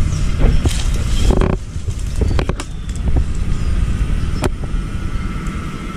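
A low rumble, strongest in the first second and a half, with a few sharp clinks as a ladle scoops soup from a metal cooking pot into plastic bowls.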